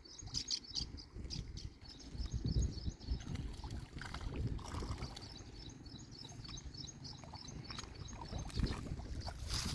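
Riverside ambience: a low, uneven rumbling noise with scattered clicks, and a bird chirping in several runs of short high notes repeated a few times a second.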